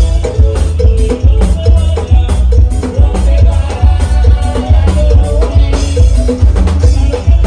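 Live Latin tropical band playing with a steady, driving beat: bass and drums under saxophones, congas and a shaker.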